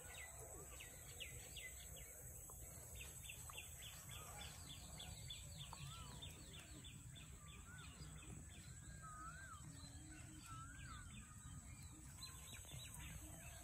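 Faint birdsong: rapid, repeated high chirps, several a second, with a few lower wavering whistles between about eight and eleven seconds in, over a low rumbling background noise.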